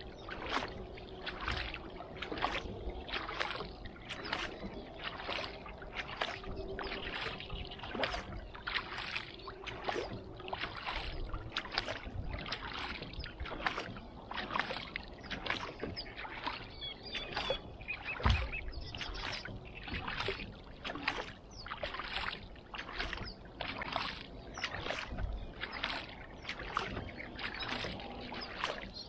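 Kayak paddle strokes splashing in the water, alternating one after another about once a second in a steady, even rhythm.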